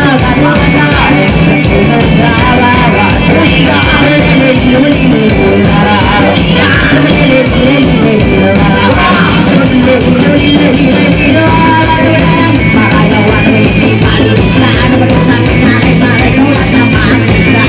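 Live band playing loud rock-style music with singing.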